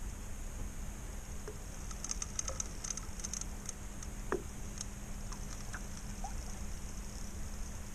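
Small waves lapping and pattering against a small fishing boat's hull, over a steady low wind rumble and hum, with scattered faint high ticks and clicks.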